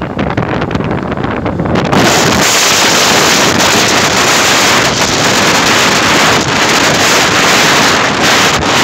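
Wind rushing over a phone microphone carried on a moving motorbike, a loud steady hiss. About two seconds in it jumps abruptly louder and brighter and stays that way.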